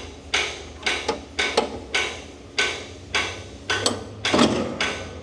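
A run of sharp metal-on-metal knocks, about two a second, each ringing briefly, from work on a tracked vehicle's steering brake mechanism.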